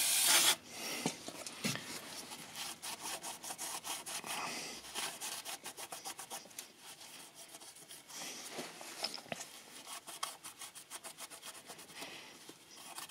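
A short hiss of aerosol cleaner sprayed onto the engine's sump mating face about half a second in, then a rag rubbing fast back and forth over the metal to degrease it for the new sump's sealant.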